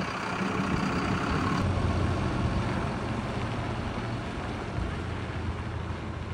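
Mercedes horsebox lorry's diesel engine running steadily as the lorry pulls away, its sound slowly fading as it drives off.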